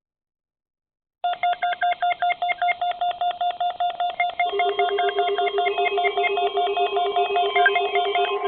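Emergency alert attention tone: a loud electronic signal of rapidly pulsing, alternating high tones that starts suddenly about a second in, with a steadier lower tone added about four and a half seconds in.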